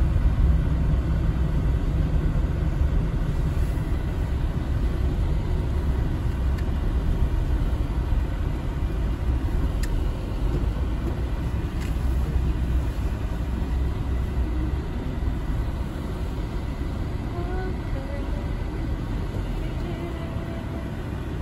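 Car driving, heard from inside the cabin: a steady low rumble of engine and road noise that gets a little quieter over the last few seconds.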